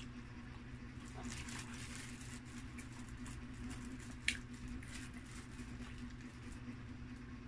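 Paper liner crackling and rustling as a pizza slice is pulled apart by hand, with scattered crackles and one sharp snap about four seconds in, over a steady low hum.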